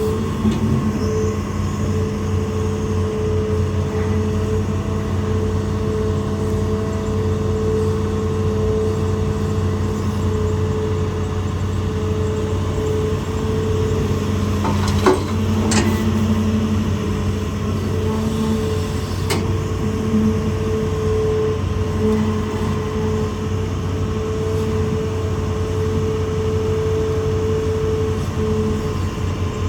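Hitachi ZAXIS200 excavator's diesel engine running steadily under work, with a few sharp knocks a little past halfway through.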